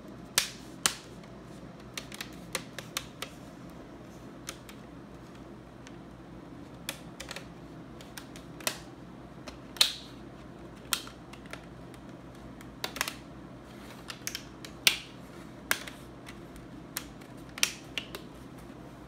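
Plastic display bezel of an HP 15 laptop being pressed back onto the screen lid, its clips snapping into place in irregular sharp clicks and crackles, like Rice Krispies.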